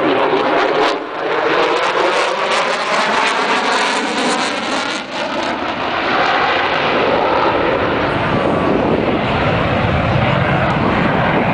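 Jet noise from an F-16 fighter jet in flight: a loud, continuous rush with slowly sweeping, phasing bands, turning deeper and fuller about halfway through as the jet passes.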